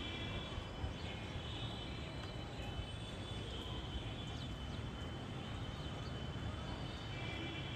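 Steady outdoor background noise: a low rumble with a few thin, high steady tones above it.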